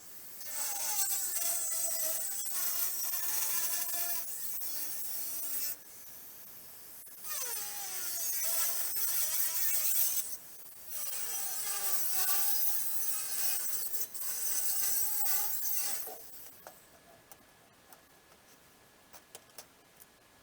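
Angle grinder cutting steel plate in three runs of a few seconds each, its motor whine dipping and recovering as the disc bites into the metal. It stops about four seconds before the end.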